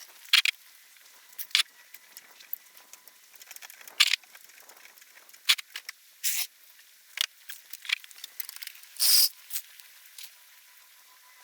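Irregular light clicks, taps and rustles of small objects being handled, a few louder ones standing out.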